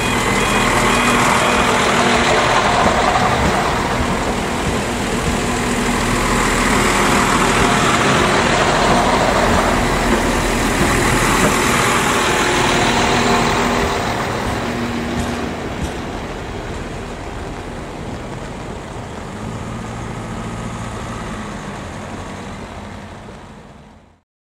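Irish Rail 22000 class diesel multiple unit running past close by, its wheels rumbling on the rails and its underfloor diesel engines running. It is loud for about the first fourteen seconds, then fades as the train pulls away, and the sound cuts off abruptly near the end.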